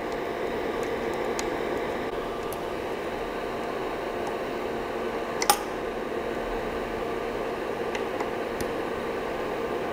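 Steady fan hum with a few small clicks, the sharpest about five and a half seconds in, as an Allen key tightens the build-plate screw on a resin 3D printer.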